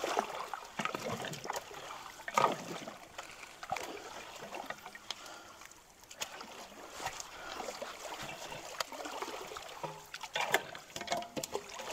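Creek water splashing and sloshing in irregular bursts as people wade knee-deep and jab long-handled tools into a log clog, over a steady trickle of flowing water.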